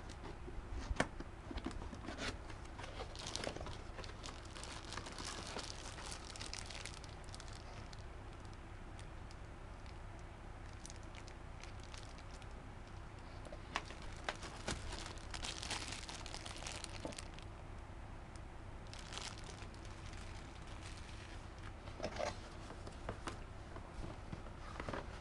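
Cardboard box and plastic packaging being handled while unboxing a receiver: bags crinkling, the box flaps and insert rustling, and scattered clicks and taps. A faint steady low hum runs underneath.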